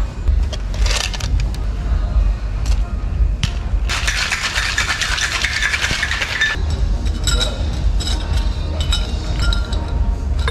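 Small clinks and clicks of tableware, glasses and cutlery. Under them runs a steady low rumble, and a dense hiss lasts about two and a half seconds in the middle.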